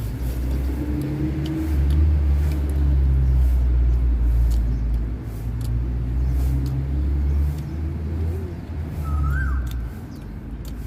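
Low rumble of a nearby motor vehicle's engine that swells for several seconds and then fades. A short bird chirp comes near the end.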